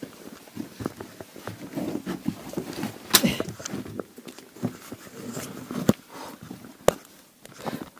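People moving over rock in a narrow cave passage: irregular shuffling and scraping with scattered knocks and clicks, the sharpest about three seconds in and again near six and seven seconds.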